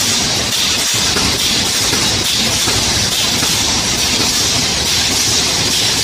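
High-speed aerosol can filling and crimping line running: a steady loud hiss with mechanical noise beneath.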